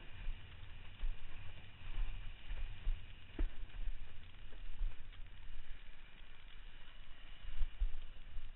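Windsurfer sailing: wind rumbling on the microphone and water rushing under the board, with a sharp knock about three and a half seconds in.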